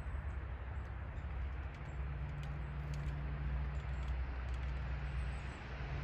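A low, steady engine-like rumble that grows slightly stronger about two seconds in, with a few faint light ticks over it.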